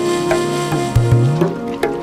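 Instrumental background music: sustained notes over a recurring low bass note that slides upward.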